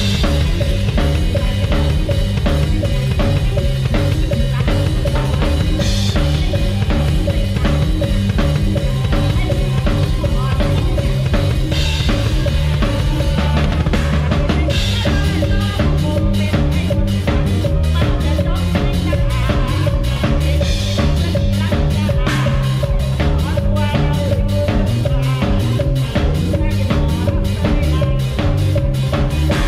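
A drum kit played live in a steady fast beat over full band music, kick and snare up front, with cymbal crashes every few seconds.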